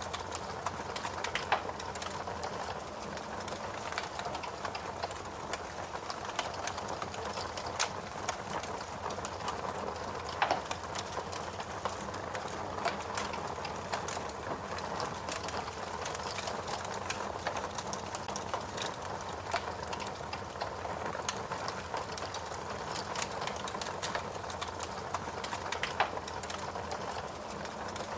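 Wood fire crackling steadily, with irregular sharp pops and snaps over a continuous hiss and rustle of flames; a few louder pops stand out.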